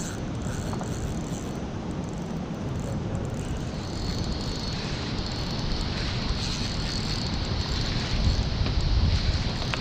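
River water rushing below a dam's spillway in a steady wash of noise, with wind buffeting the microphone, heaviest about eight seconds in. A thin high hiss joins about four seconds in.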